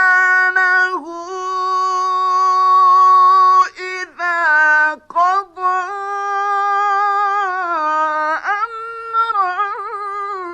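A male Quran reciter's voice chanting in long, drawn-out melodic phrases in the mujawwad style. It holds notes for several seconds with ornamental pitch turns and breaks off briefly a few times.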